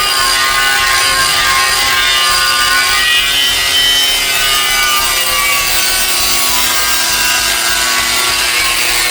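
Power tool grinding rust and old paint off the metal of an antique concrete mixer: a steady whine over a scraping hiss.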